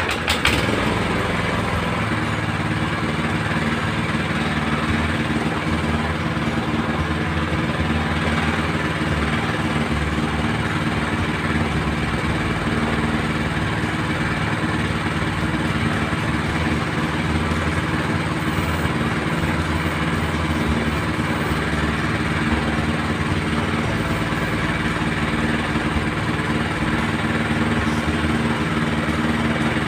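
Small single-cylinder petrol engine of a Vedda mini cultivator (walk-behind tiller) running steadily after catching right at the start.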